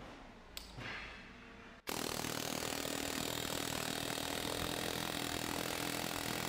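Ingersoll Rand 135MAX .401-shank pneumatic air hammer firing continuously with its bit pressed into a steel test fixture: a rapid, steady hammering that starts abruptly about two seconds in and runs for about five seconds. A brief click comes before it.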